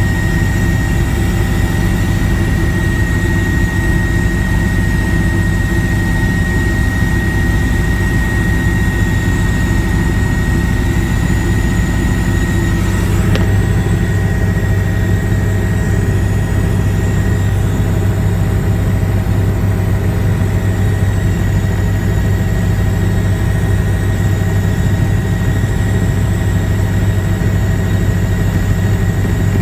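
Helicopter in flight, heard from inside the cabin: a loud, steady low drone of rotor and engine with a thin high whine over it. A single click about thirteen seconds in.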